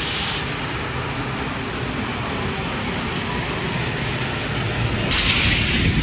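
Steady rain falling, an even hiss that grows louder and brighter about five seconds in.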